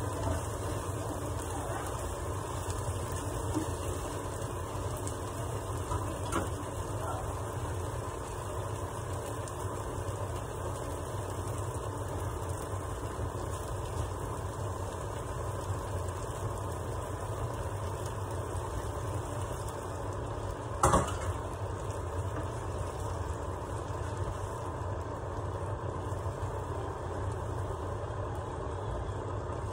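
Tomato risotto simmering in a frying pan on a gas hob and stirred with a wooden spoon, over a steady low rumble. One sharp knock about 21 seconds in.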